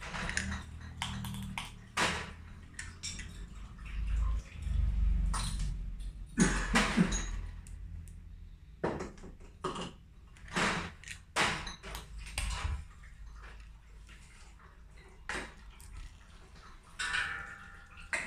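Scattered clinks and knocks of glass bottles and bottling equipment being handled during cleaning and sanitising.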